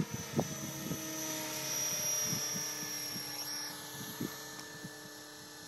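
Electric Align T-Rex 600 radio-controlled helicopter in flight: a steady high motor whine over a low rotor hum. It swells slightly about two seconds in, then fades as the helicopter flies off.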